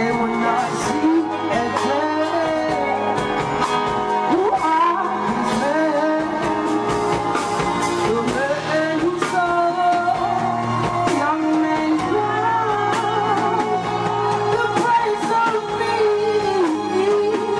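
Live acoustic performance of a song: a woman singing into a microphone over guitar accompaniment.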